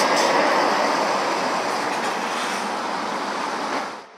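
Lorry passing on the road: a loud rush of tyre and engine noise, loudest at the start, slowly easing, and cut off suddenly near the end.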